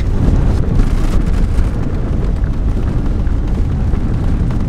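Steady low rumble heard from inside a vehicle's cabin as it drives along a wet gravel road: engine and tyre noise.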